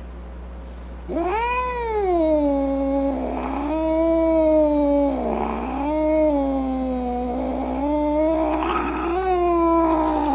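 A cat yowling in a long, drawn-out growling call that wavers up and down in pitch, with raspy breaks between the swells: the threatening caterwaul of an agitated, defensive cat. It starts about a second in.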